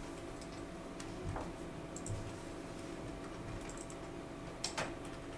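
Scattered computer keyboard taps and mouse clicks, a few at a time and unevenly spaced, over a steady low hum.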